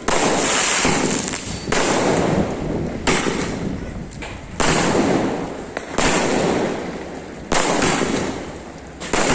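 Ruby Fireworks 'Universal' 60-shot multishot sky-shot cake firing its shells in sequence. There are about eight shots, roughly one every one and a half seconds with two in quick succession near the end. Each is a sharp bang that trails off into a fading hiss.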